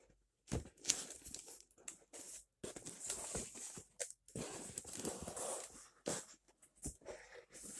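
A cardboard shipping box being opened: packing tape tearing and cardboard rustling and knocking in irregular bursts with short pauses.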